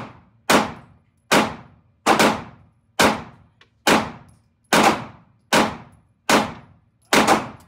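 Glock 43X 9mm pistol fired at a steady pace, about one shot a second, around ten shots with a close pair near the end. Each shot rings out in the reverberation of an indoor range lane.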